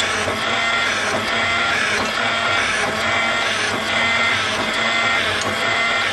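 Automatic gas-burner drilling machine running, a steady mechanical whine and clatter with a regular pattern that repeats about once or twice a second.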